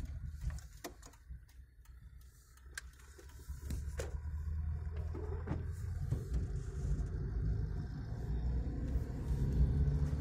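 Low, steady rumble of a Mitsubishi Pajero driving on a snow-covered road, heard from inside the cabin. It is quieter for a couple of seconds early on, then grows louder as the car drives on, with a few light knocks in the first four seconds.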